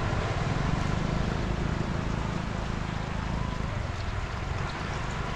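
Steady rushing outdoor noise: wind buffeting the microphone over floodwater running across a road.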